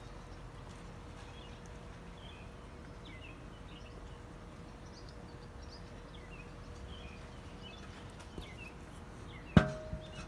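Faint outdoor background with scattered small bird chirps, then near the end one loud metallic clank with a short ring: the steel lid of the kettle smoker being set down over the turkey legs.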